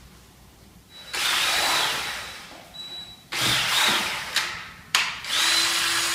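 Cordless drill-driver with a mixing paddle stirring wallpaper paste in a plastic bucket of water, run in three short bursts with pauses between, as the dry paste flakes are poured in and mixed.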